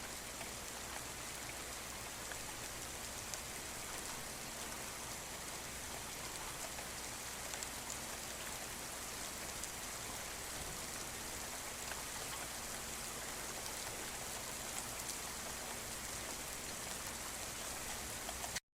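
Steady rainfall: an even hiss of rain with many small drop ticks. It cuts off suddenly at the very end.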